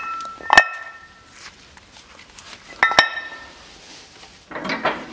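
Steel parts clanking and clinking on a hydraulic shop press as a wheel hub with its brake disc is handled. There are two sharp metallic hits, at about half a second and three seconds in, each ringing briefly, then a short rattle of metal on metal near the end.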